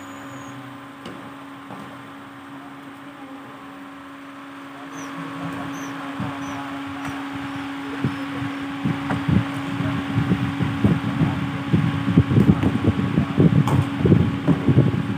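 Badminton rally in a hall: rackets strike the shuttlecock and sneakers squeak and thud on the court over a steady fan-like hum. The play grows louder and busier in the second half, with a sharp racket hit near the end.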